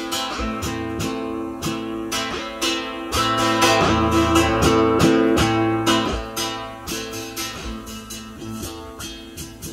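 Instrumental music led by plucked and strummed guitar over bass notes, growing louder in the middle and easing off again.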